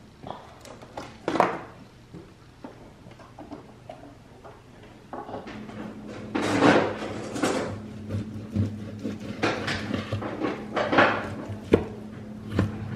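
Kitchen handling clicks and knocks, then a knife slicing raw boar loin on a plastic cutting board, with scraping and knocking strokes against the board. A steady low hum starts about five seconds in.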